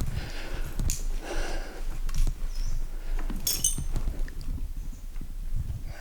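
Scattered light clinks and knocks, with a brief high-pitched chirp about three and a half seconds in.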